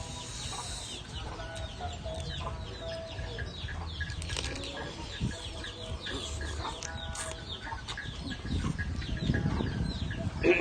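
Chickens clucking in short repeated calls, with many high, quick falling chirps over them. A louder noisy stretch comes near the end.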